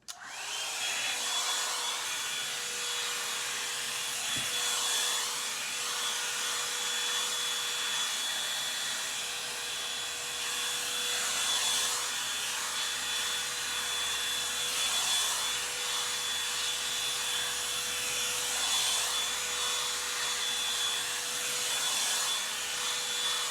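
Revlon One Step hair dryer brush switched on, its whine rising briefly as the motor comes up to speed, then blowing steadily.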